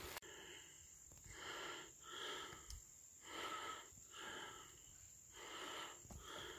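A person breathing hard, about three breaths each drawn in and let out, spaced about two seconds apart.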